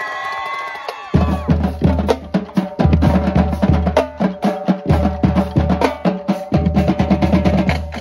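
Marching band drumline playing a cadence together: deep bass drum hits under rapid snare and tenor drum strokes. The drums come in about a second in, after a held pitched sound, and cut off together at the very end.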